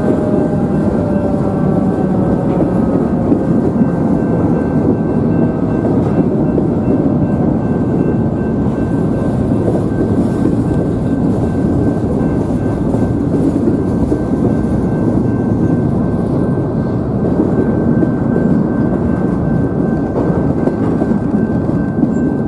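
Norfolk Southern train passing close by with a loud, steady rumble and a thin, steady high tone. Over the first second or two, the falling tone of a Federal Signal 2001-130 siren winding down fades out beneath it.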